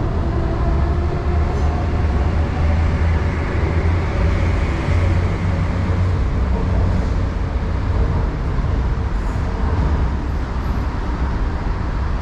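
MTR C-Train electric metro train running through the station: a steady, heavy rumble of wheels and running gear, with a faint motor whine that fades within the first two seconds.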